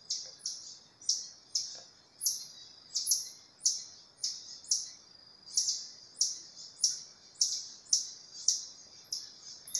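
A series of short, sharp, high-pitched chirping calls from a forest animal, repeating evenly about every half second.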